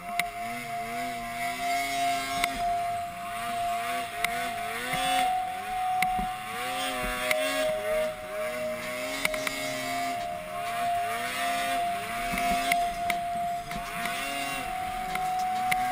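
Polaris RMK 700 two-stroke snowmobile engine revving up and down again and again as it is ridden through snow, heard from the rider's helmet, with a steady high whine underneath.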